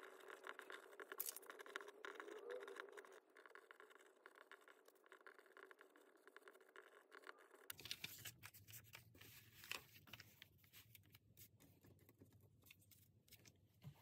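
Faint scratching of a pencil writing on a paper card for the first few seconds, then quieter paper handling with scattered light taps and rustles.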